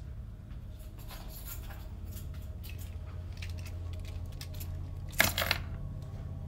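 Light metallic clinking and jingling over a steady low hum, with a louder sharp clink about five seconds in.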